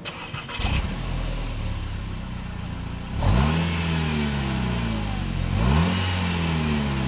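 Volkswagen Eos engine heard through its standard stainless steel exhaust and twin tailpipes: it starts up about half a second in and settles to an idle. It is then revved twice, each rev rising quickly and falling back, about three seconds in and again near the end.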